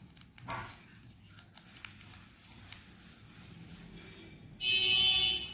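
Faint rustling and small clicks of a newspaper strip being rolled by hand around a pencil. Near the end a brief ringing tone of several pitches sounds for under a second.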